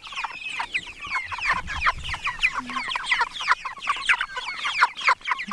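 A flock of seven-week-old meat chickens calling all at once: a constant overlapping chatter of many short, high, falling peeps.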